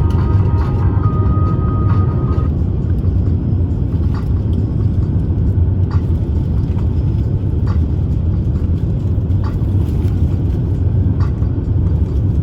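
Airbus A350-1000 cabin in flight: a steady, loud low rumble of engine and airflow noise. Faint ticks recur about every one and a half to two seconds.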